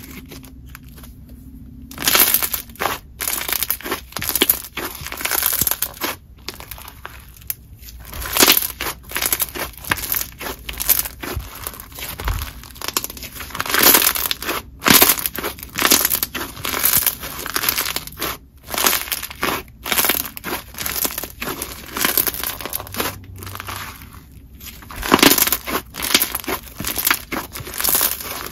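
Hands squishing and pressing a clear crunchy slime mixed with bingsu foam beads and soft star add-ins, giving a dense run of crackling crunches. The crunching starts about two seconds in.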